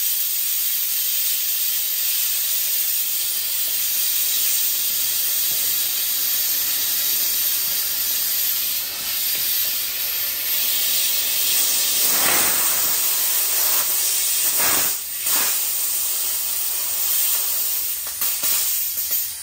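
Compressed air blowing off from a high-pressure air compressor's bleed after a fill to 300 bar. It is a loud, steady hiss that wavers a few times in the second half and then stops abruptly.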